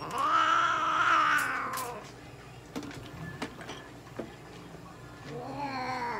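A long-haired mixed-breed cat gives two long, drawn-out meows while being held down on an examination table. The first lasts about two seconds from the start, and the second comes near the end. A few light taps from handling fall between them.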